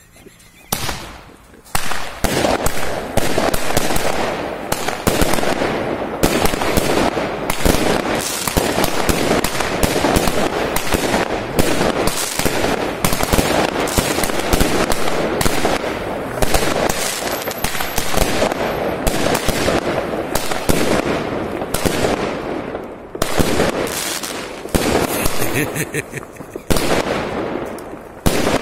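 A ground-lit firework battery (cake) fires a rapid, continuous string of shots and crackling bursts. It starts about a second in and runs on for most of the half-minute, with short lulls near the end.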